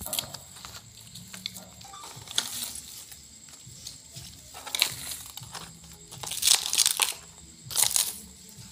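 Fresh leafy herb stems snapped and torn by hand: a run of crisp crackling and tearing bursts, the loudest between about six and eight seconds in.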